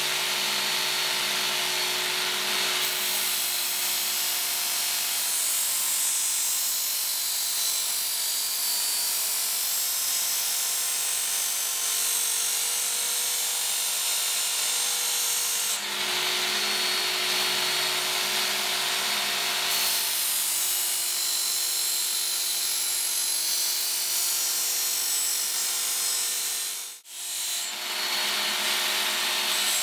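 Work Sharp Ken Onion Edition electric belt sharpener running on its coarsest abrasive belt while a steel machete blade is drawn across it: a steady motor hum under a hissing grind that changes as the blade moves along the belt, raising a burr on the edge. Near the end the sound cuts out for a moment.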